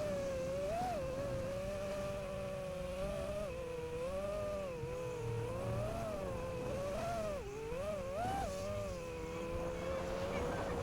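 5-inch FPV quadcopter's brushless motors and propellers whining, the pitch rising and falling as the throttle is worked, with quick swoops up and down near the end.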